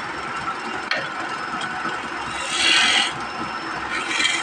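A hand-held turning chisel cutting into a large wooden workpiece spinning on a wood lathe: a longer rasping cut about halfway through and a shorter one near the end, over the steady running noise of the lathe.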